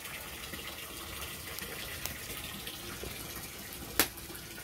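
Wood fire burning in the firebox under an iron cauldron: a steady hiss with small scattered crackles, and one sharp snap about four seconds in.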